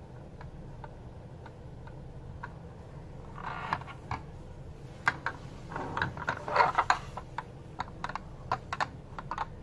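Fingers handling a 1:18 scale diecast model car, with faint light ticks and then, from about three seconds in, a run of sharp clicks and rubbing from its small plastic and metal parts.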